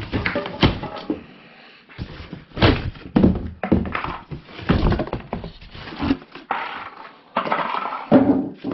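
Cardboard shipping box being torn and pulled open by hand around a steel tool chest, with a run of ripping, scraping and several dull thunks.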